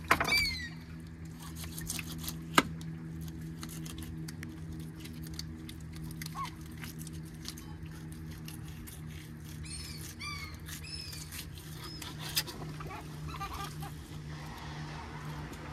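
Fillet knife working through fish on a boat's cleaning table, with faint scraping and clicking and a sharp click now and then, over a steady low hum. A few short squeaky chirps come near the start and in a quick run about ten seconds in.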